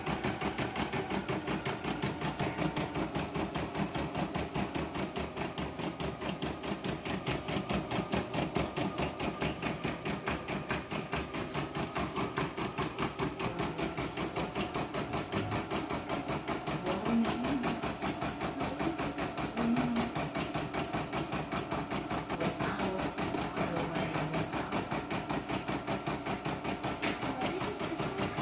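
CNY E960 computerised embroidery machine stitching a test design, the needle going with a rapid, even ticking as the embroidery arm moves the hoop. The test run checks whether the stitching shifts out of place.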